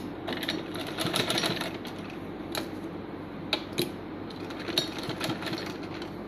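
Usha sewing machine stitching, its needle running in a steady stream of fine clicks over a low hum, busiest in the first second and a half.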